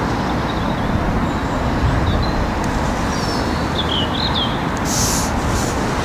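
Steady rush of road traffic, with a few faint bird chirps around the middle and a brief rustle near the end.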